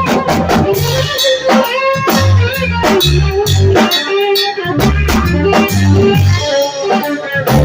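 A live band playing: electric guitar, bass guitar and drum kit, with a steady beat of drum hits and sustained bass notes under the guitar.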